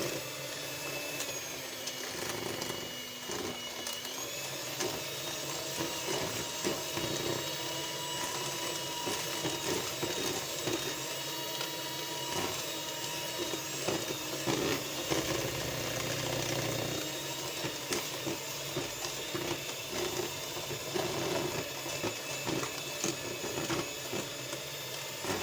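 Electric mixer running steadily, beating eggs and sugar as oil is poured in a little at a time, with a steady motor whine.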